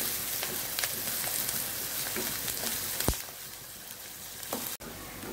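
Chopped onions, green chilli and curry leaves sizzling in hot oil in a nonstick kadai as they are stirred with a spatula, with light scraping ticks: the onions sautéing until translucent. A single sharp knock about three seconds in, after which the sizzle is quieter.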